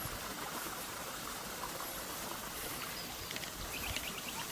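Steady trickle of running water in a garden stream, with a few faint high chirps about three seconds in.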